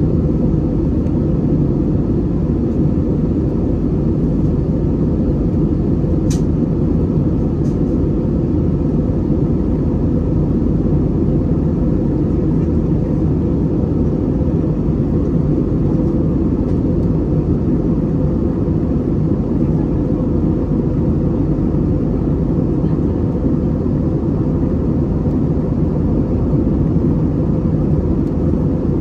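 Steady cabin drone of an Airbus A320neo in the climb: its Pratt & Whitney PW1100G geared turbofans and the airflow over the fuselage make an even low rumble, heard from a seat beside the wing. Two faint clicks come about six and eight seconds in.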